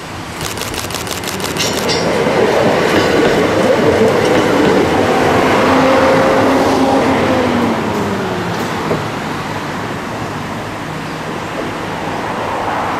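Hakone Tozan Railway 3000-series electric train running past on the rails: wheels clicking rapidly over the track near the start, then traction motor whine that grows louder. The motor tones slide downward as the train goes by, and the sound eases off toward the end.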